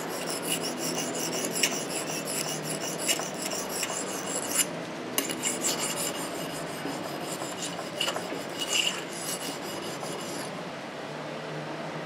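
Butterfly knife blade being sharpened on a whetstone: steel scraping across stone in repeated strokes, with a short pause about five seconds in, stopping about ten and a half seconds in.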